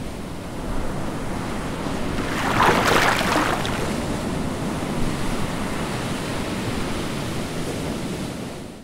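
Ocean waves washing steadily, with a louder rushing swell about two and a half seconds in; the sound fades out near the end.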